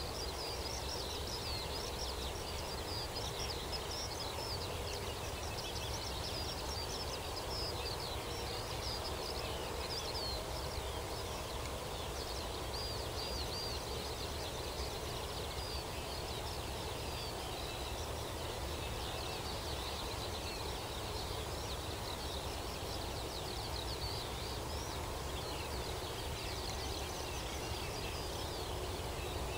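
A morning chorus of several songbirds, with many short, high chirps and twitters overlapping continuously. Under it runs a steady low background rumble.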